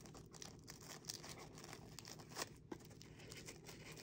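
Faint paper rustling and crinkling as a wrapped item is carefully unwrapped by hand, so as not to tear the paper, with a few brief soft crackles.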